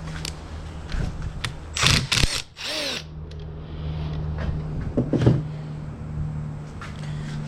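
Handheld power tool, drill-type driver, spinning bolts out of a transmission case in two short bursts, about two seconds in and again about five seconds in, over a steady low hum.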